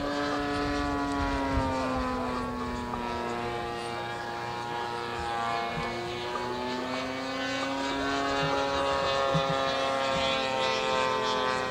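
Radio-control model airplane engine running steadily, its pitch slowly sagging and rising again, with a second model engine overlapping at times.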